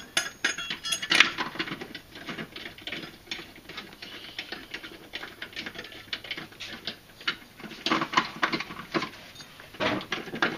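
Irregular small metal clicks and rattles of spindle mounting bolts being threaded into a new mower deck spindle housing, with louder clusters about a second in and near the end.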